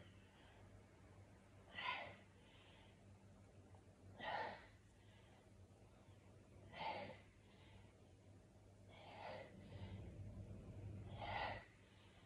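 A woman breathing hard through a set of press-ups: a strong breath with each repetition, about every two and a half seconds, five in all, each followed by a softer one.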